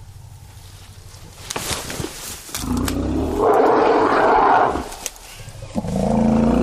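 African elephants giving two long, loud calls, the first from about two and a half seconds in and the second near the end, after a few sharp cracks. They are the distress calls around an elephant calf that has become separated from its mother and is upset.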